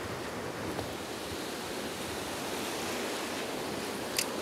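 Waves breaking and washing on a shallow sandy surf beach in a strong wind, a steady rush of surf. One short sharp click sounds near the end.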